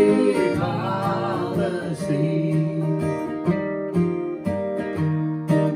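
Acoustic guitar strummed, with a held, wavering sung note on the last word of a line near the start; after that the guitar carries on alone, about two strums a second.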